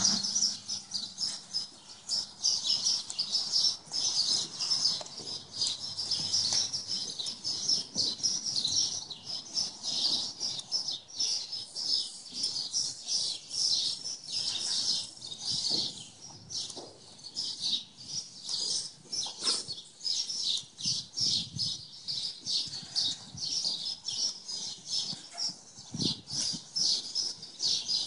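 Small birds chirping, a dense run of quick, high, overlapping chirps that goes on without a break.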